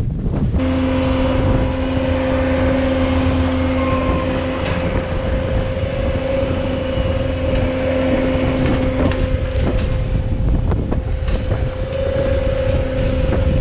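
Bobcat skid steer running steadily, with a steady whine that comes in about half a second in, and wind buffeting the microphone.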